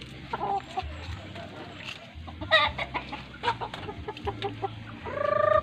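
Native chickens clucking, with short calls scattered throughout and a louder one about halfway. Near the end a chicken lets out a long rising squawk.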